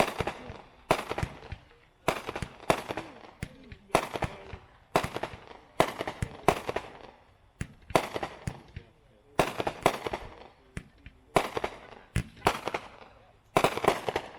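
A 16-shot 200-gram consumer fireworks cake (World Class XOXO) firing: sharp reports in quick clusters, about one every half second to a second, stopping suddenly near the end.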